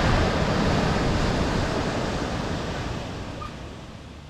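Steady rushing noise that fades out over the last two seconds.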